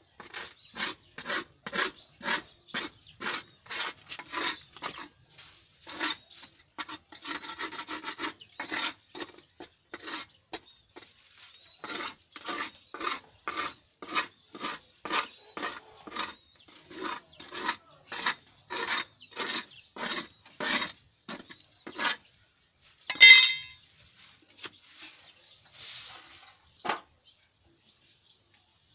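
Stiff stick broom (walis tingting) scrubbing dried pigeon droppings off a loft floor in quick rasping strokes, about two a second. Near the end there is one sudden loud clatter and the scrubbing stops.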